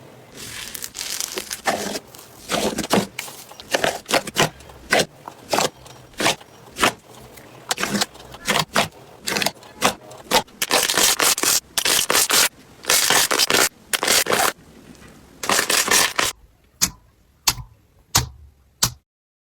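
Slime being squeezed and pressed by hand, giving a run of short crackling pops and crunches one after another. About three-quarters of the way through the sound changes to sparser, sharper clicks with quiet between them.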